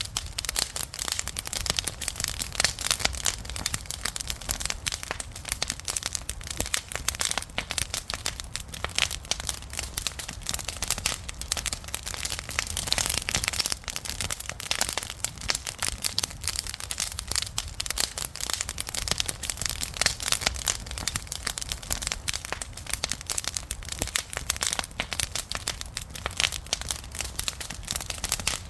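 Wood campfire crackling and popping, many small irregular snaps over a low steady rumble of the flames.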